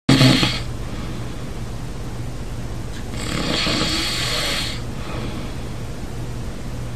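A sleeping person snoring loudly: a short rattling snore at the start, then a longer breathy snore about three seconds in. A steady low hum sits underneath.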